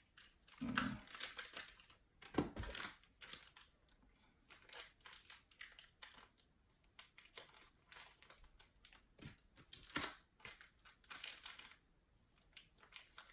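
Faint crinkling and crackling of a foil trading-card pack wrapper being handled and torn open, with scattered small ticks and rustles.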